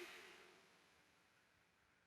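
A small motor spinning down, its falling whine fading out about half a second in, then near silence.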